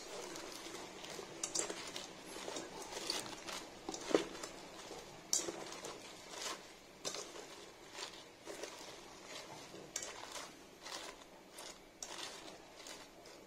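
Salad being tossed with a plastic salad server in a bowl: irregular clicks and knocks of the server against the bowl, mixed with the crisp rustle of lettuce and chopped vegetables.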